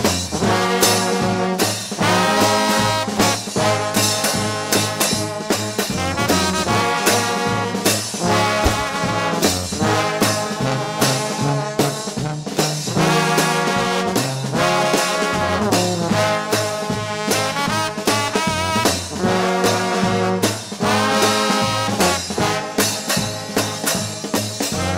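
Trombone shout band playing gospel: a massed choir of trombones with other brass over a driving swing beat and a steady bass line.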